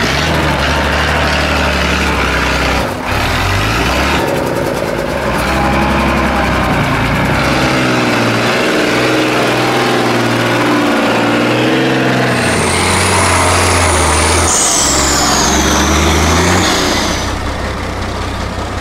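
Off-road truck's diesel engine working hard, its pitch rising and falling as it revs. A thin high whine comes in about halfway through and slides downward before fading.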